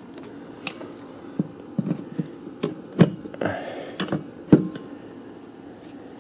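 Handling noises: about a dozen light clicks and knocks as things are picked up and set down on a workbench, the two sharpest about three and four and a half seconds in.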